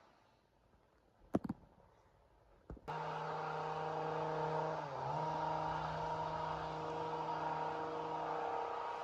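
Chainsaw engine: near-quiet for the first few seconds apart from a couple of sharp clicks, then about three seconds in it is heard running at high revs at a steady pitch, which dips briefly once about two seconds later.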